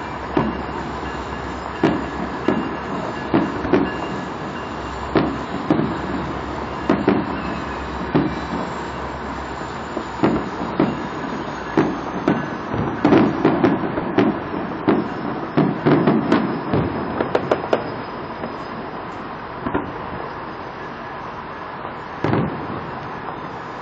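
Fireworks shells bursting in a steady run of bangs, coming thickest in the middle stretch and thinning out to a few separate bangs near the end.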